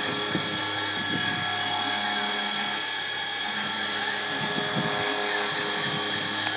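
CNC 3040 router cutting wood: the spindle whines steadily while the stepper motors whir, their pitch gliding up and down as the gantry traces a circle.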